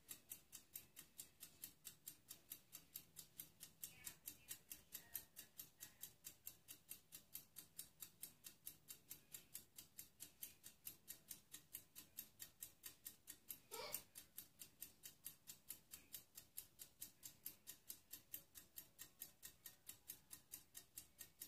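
Near silence with a faint, even ticking at about three to four ticks a second, and one short rising sound about two-thirds of the way through.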